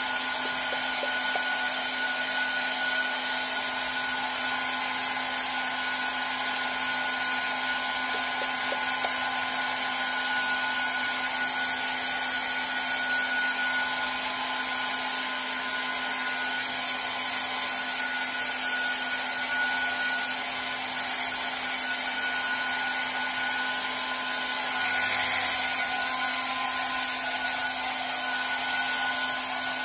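Handheld hair dryer running continuously, a steady rush of air with a steady whine over it, briefly louder once near the end.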